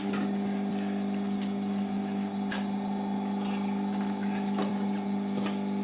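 Electric sewing machine running at a steady speed with a constant hum, stitching a fur pelt, with a few light clicks along the way.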